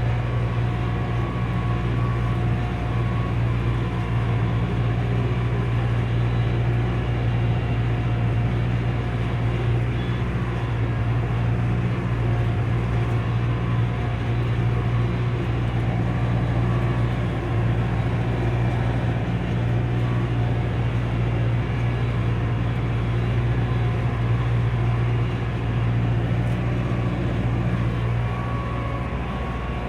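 Farm tractor running steadily while pulling and driving a hay baler in the field: a steady low engine drone with little change in level.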